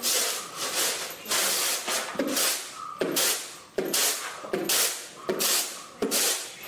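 Kaje rice being winnowed on woven bamboo trays: the grains rasp and swish across the trays in a rhythm of about one to two strokes a second, cleaning out husk dust and small stones.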